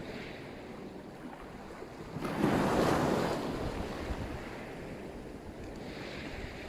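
Black Sea surf on the shore: a steady wash of water, with one wave breaking about two seconds in, the loudest moment, then sliding back into a hiss. Wind rumbles on the microphone underneath.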